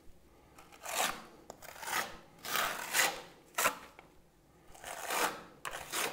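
Steel spatula scraping travertine decorative plaster onto a wall corner and smoothing it, about half a dozen short scraping strokes roughly a second apart.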